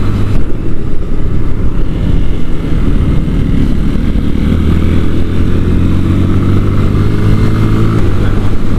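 Sinnis Akuma 125cc motorcycle engine running on the move, its pitch shifting a little up and down with the throttle.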